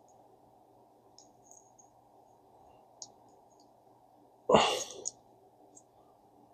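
Light clicks and taps of small metal reel parts and tools being handled on a workbench, with one louder knock about two-thirds of the way through.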